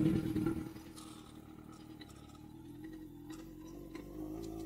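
Sport bike engine falling back over the first second, then idling steadily and low.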